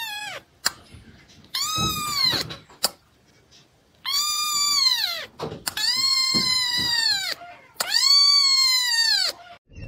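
Very young kitten mewing, a string of long high-pitched meows that each rise and fall in pitch, four full cries after the end of another one.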